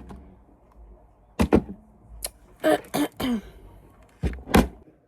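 Short, loud bursts of a woman's voice, three times, without clear words.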